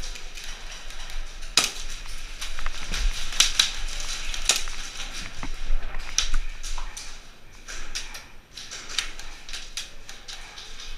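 Irregular sharp cracks and clicks of an indoor airsoft game in a small, hard-walled space, the loudest about one and a half seconds in, with others near three and a half, four and a half and six seconds.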